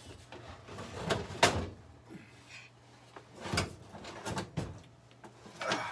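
An old built-in microwave oven being worked loose and tilted out of its cabinet opening: scrapes and knocks of its case against the cabinet. The loudest knock comes about a second and a half in, with a cluster of smaller knocks a couple of seconds later and another just before the end.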